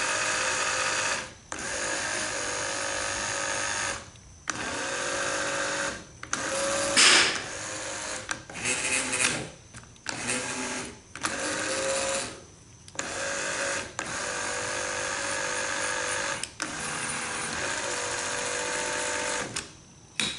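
Restored 1960s Lincoln Continental power seat frame being run on the bench: its screw jacks driven in stretches of one to three seconds, a steady motor whine that stops and starts about eight times as the seat moves up, down, forward and back. This is the normal, healthy travel speed for these screw jacks. There is one short, louder burst of noise about seven seconds in.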